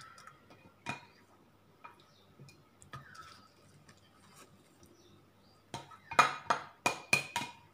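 A plastic spoon tapping and scraping against a ceramic plate while spreading minced meat filling: scattered light clicks, then a quick run of about six sharp taps near the end.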